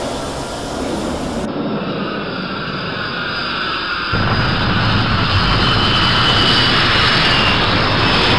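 Jet aircraft engine noise: a steady rushing sound with a faint high whine, joined by a deeper, louder rumble about four seconds in.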